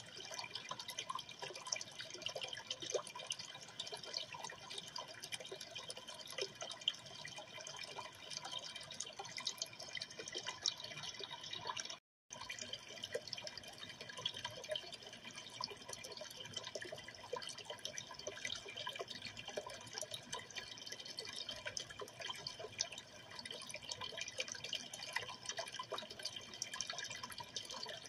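Aquarium water trickling and dripping steadily, a continuous fine splashing, cut off for a moment about twelve seconds in.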